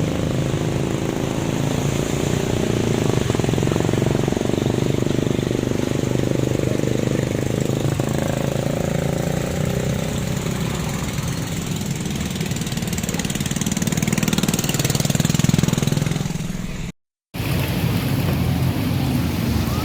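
A motor vehicle's engine running steadily, under a constant hiss of noise. The sound cuts out briefly about seventeen seconds in, then resumes.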